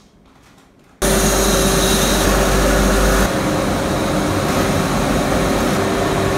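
Pasta production-line machinery, conveyor dryers with their motors and fans, running with a loud steady noise and an even hum. It starts suddenly about a second in, and the low hum changes a little after three seconds.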